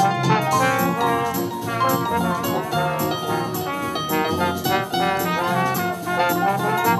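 A trumpet and a trombone playing a tune together, live, over a line of low notes underneath.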